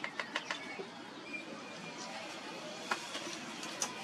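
Quick run of sharp scraping taps as a hand-held blade trims a mud brick, stopping about half a second in. Two single clicks later, as bricks are knocked together while being set down.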